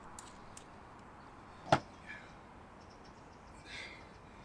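Small hand work on fittings at a van's roof-mounted solar panel: one sharp click about two seconds in, with a few faint ticks before it and a brief rustle near the end.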